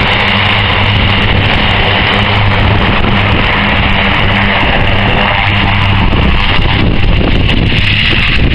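C-130 Hercules' four turboprop engines running as the aircraft moves along the runway: a loud, steady drone with a low propeller hum under a high whine.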